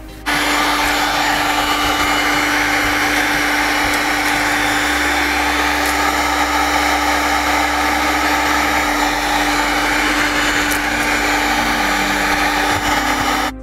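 Electric heat gun running: a steady rush of blown air with a constant hum from its fan motor, heating old clear bra (paint protection film) to soften it. It starts suddenly just after the beginning and stops suddenly near the end.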